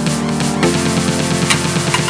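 Electronic background music with a steady beat, changing chord about half a second in.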